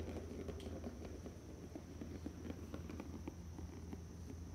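Maine Coon kitten playing: light, irregular taps and scrabbling, many small ticks a second, over a steady low hum.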